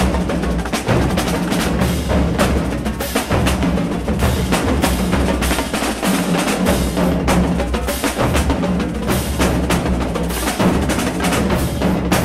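Marching band drumline playing together: snare drums, tenor drums (quints) and bass drums, with dense, rapid stick strokes over steady deep bass-drum beats that never pause.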